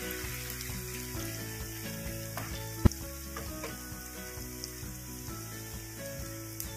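Sliced onions with whole spices frying in oil in a pan, a steady sizzle while a wooden spatula stirs them. A single sharp knock comes about three seconds in.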